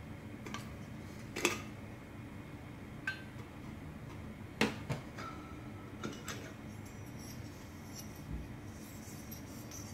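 Titanium camping mug and its lid clinking and knocking on a metal tabletop: a handful of sharp, separate clinks, the loudest about one and a half seconds in and again about four and a half seconds in, one followed by a brief ring.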